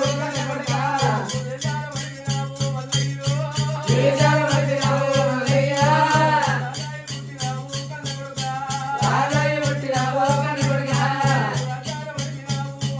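Oggu katha folk performance: voices singing in phrases over a fast, even percussion beat of about four strokes a second, with a rattling, jingling edge to each stroke. The singing comes and goes; the beat runs on under it.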